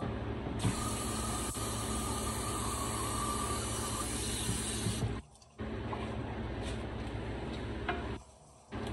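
Kitchen tap running water into a steel sink in a steady stream for about four seconds, then shut off abruptly.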